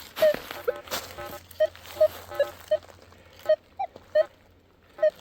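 Metal detector sounding about a dozen short, low chirps in quick, irregular succession as the coil passes over iron nails in the ground; the detectorist takes them for iron signals and falsing. Rustling and a couple of knocks in the first second or so.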